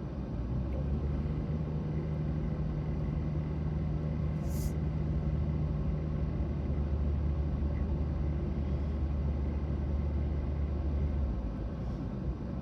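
Car interior driving noise: a steady low engine and road drone with a constant hiss, the low hum dropping away near the end. A brief high hiss about four and a half seconds in.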